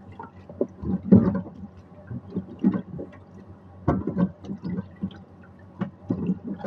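Water splashing in a kitchen sink in irregular bursts as hands work under the tap.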